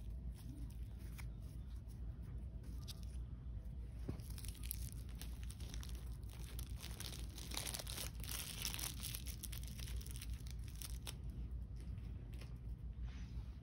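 Blind-bag packaging being crinkled and torn by hand. Faint scattered crackles at first, turning into dense crinkling about four seconds in, then thinning out near the end.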